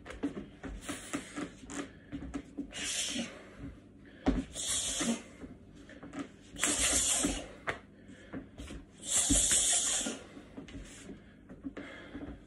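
A person's forceful hissing exhalations during martial-arts movements, about five in all, each half a second to a second long, with a few dull thuds of booted feet on the floor.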